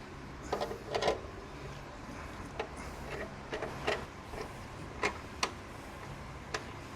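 Scattered light clicks and knocks of hand tools on the motorcycle's front wheel and axle, about seven at irregular intervals, over a faint steady low hum.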